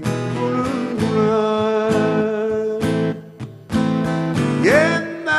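Live band performance of a Korean rock song: a man sings a drawn-out line over strummed acoustic guitar. The music drops briefly about three seconds in, and a note slides upward near the end.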